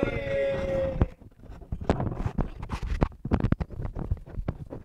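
Microphone handling noise: a run of irregular clicks, rubs and knocks as a headset microphone at a man's ear is fiddled with, after a man's voice trails off in the first second.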